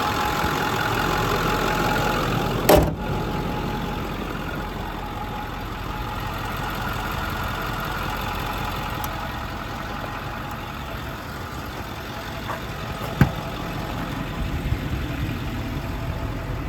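Ford 6.4 Power Stroke V8 turbo-diesel idling steadily. There is a brief thump about three seconds in and a sharp click about thirteen seconds in.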